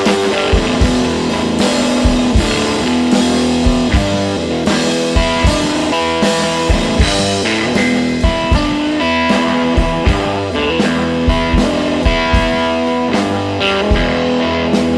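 Background rock music led by guitar, with a steady drum beat.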